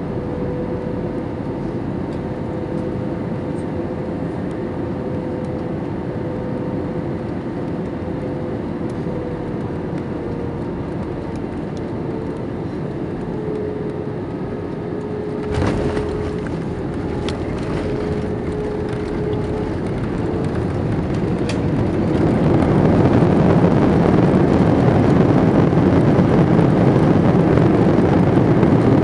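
Cabin noise of an Airbus A321 landing: a steady engine hum with a tone that glides slightly lower as thrust comes back, then a thump a little past halfway as the wheels touch down, followed by a few rattles. About three-quarters of the way in, the noise rises sharply and stays loud as the engines spool up into reverse thrust, with the spoilers up, braking on the runway.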